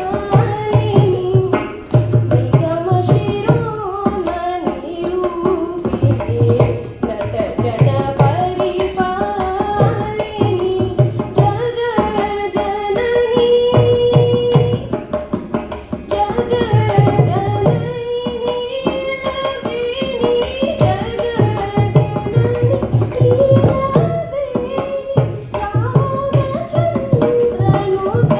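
Female voice singing a Carnatic devotional song in raga Saraswathi, with a gliding, ornamented melody, accompanied by a mridangam playing dense strokes punctuated by deep bass beats.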